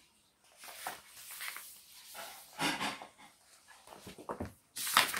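Soft, irregular rustles of a picture book's paper pages being turned and the book handled, with the loudest rustle near the end.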